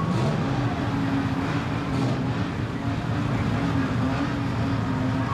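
Straight-piped classic Japanese cars, among them Nissan Skyline 'Hakosuka' coupes, idling together in a queue: a steady low exhaust rumble with one engine note holding steady from about half a second in.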